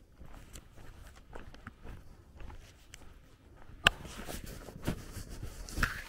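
Footsteps on a gravel dirt road, a string of short irregular steps, with one sharp click a little under four seconds in as the loudest sound.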